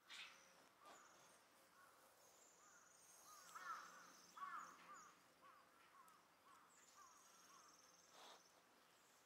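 Faint animal calls: quick rising-and-falling chirps, clustered in the middle, and two high buzzy trills of about a second each.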